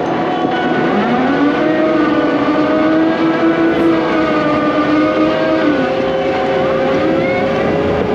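Hydraulic excavator at work, its diesel engine running under load with a whining tone that rises about a second in, holds, drops away near six seconds, then rises again near the end.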